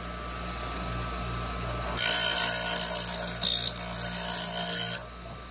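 Powered piston-ring grinder. Its motor hums, then about two seconds in a piston ring's end is pressed against the spinning grinding wheel for one pass. It grinds with a harsh hiss for about three seconds and stops abruptly when the ring is pulled away.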